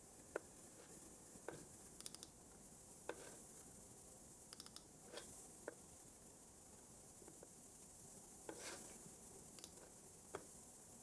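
Faint, scattered clicks of a computer keyboard and mouse: single clicks every second or so, with two quick runs of three, over a quiet steady hiss.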